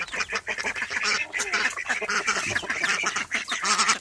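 A flock of chickens squawking and clucking together, many short calls overlapping with no break, as the birds crowd into their coop.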